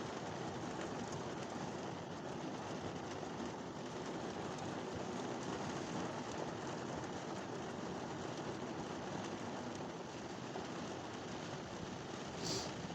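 Steady thunderstorm rain falling, an even hiss that holds at one level, with one brief sharper sound near the end.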